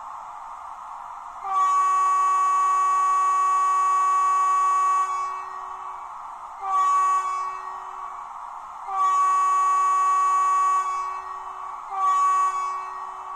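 Factory sound-decoder horn of an Acme E656 model electric locomotive, played through the model's small speaker: four blasts, long, short, long, short, each a steady single-pitched tone, over a steady hiss. The owner finds this factory horn sound wrong for the real E656 locomotive.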